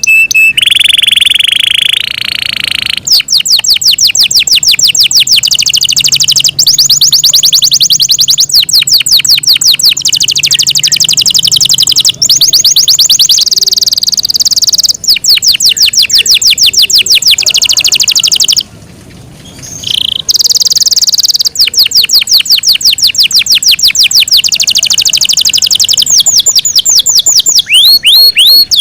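Yorkshire canary singing: a held high note opens, then long, fast trills of rapidly repeated notes that each sweep down in pitch, with a brief pause about two-thirds of the way through.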